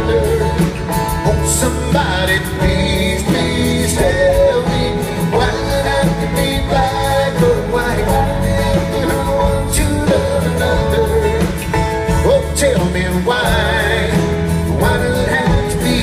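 A country band playing live: a sung lead vocal over guitars, bass and drums.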